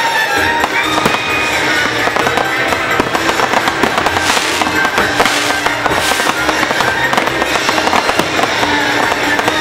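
Fireworks bursting and crackling in quick succession over the show's loud music soundtrack, with a few hissing, crackling stretches a little past the middle.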